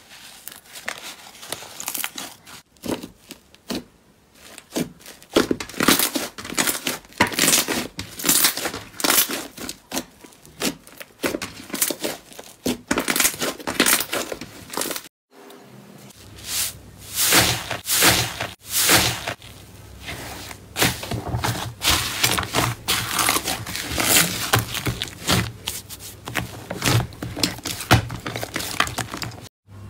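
Hands squeezing and pressing soft slime, giving dense irregular runs of sharp clicks and pops. There is a short break about halfway through, then more of the same over a faint low hum.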